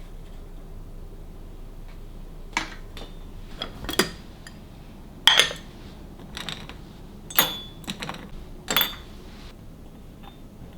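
Tableware being handled: about half a dozen separate clinks and knocks of dishes, glass or cutlery, spaced a second or so apart, over a low room hum.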